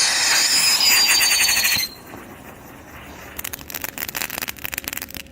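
Tank-shaped novelty firework going off: a loud hissing whistle, its pitch sliding slightly down, for about two seconds, then after a short lull a rapid string of small crackles from about three seconds in.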